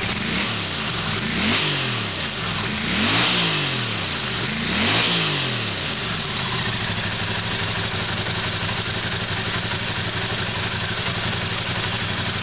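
Honda CX500's liquid-cooled V-twin engine, running on freshly installed carburetors, blipped three times, each rev rising and falling back, then settling into a steady idle.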